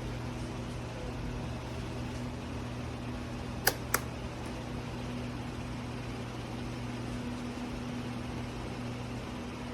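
Comfort Zone 16-inch wall-mount fan running steadily, a whoosh of moving air over a low motor hum. Two sharp clicks come close together a little under halfway through.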